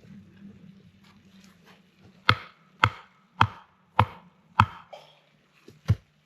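Chopping: five sharp, evenly spaced chops about half a second apart, then one more after a short pause.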